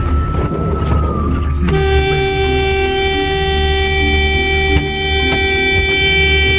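A vehicle's horn held down in one long steady blast, starting about two seconds in, over the low rumble of the engine and rough track heard from inside the cab. The horn is sounded to call people out.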